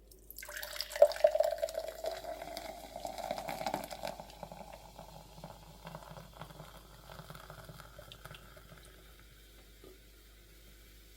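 Water running or pouring into a container, loudest for the first few seconds, then tapering off to a thin trickle and drips.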